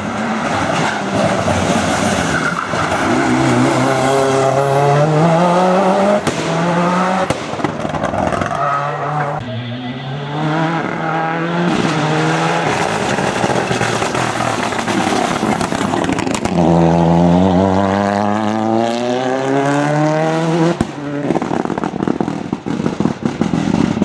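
Ford Escort rally cars driven hard past the camera in several passes, the engines revving up through the gears so that the pitch climbs, drops back at each shift and climbs again.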